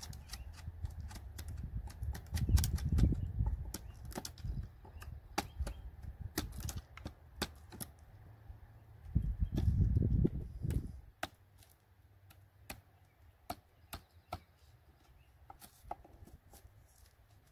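A hatchet peeling bark off the edge of a round log slice: a run of sharp, irregular clicks and cracks as the blade chips and pries the bark away. Twice, a few seconds in and again about ten seconds in, a low rumble rises over it, louder than the clicks.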